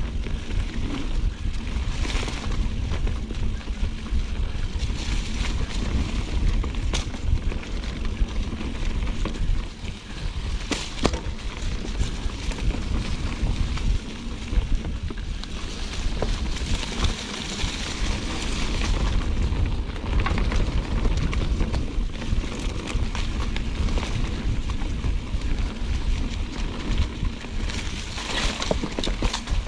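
Mountain bike descending a dirt trail: steady wind rush on the microphone with the rumble of the tyres over the ground. A few sharp knocks stand out, two of them around seven and eleven seconds in.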